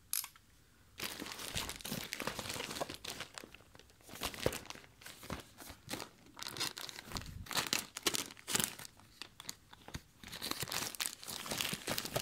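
Plastic poly mailer bag crinkling and rustling as it is handled and torn open, starting about a second in, with many small crackles.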